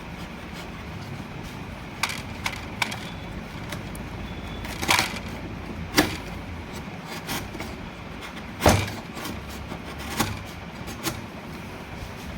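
Wood being struck or worked by hand: about eight irregular sharp knocks and cracks, the loudest about six and nine seconds in, over a steady low background rumble.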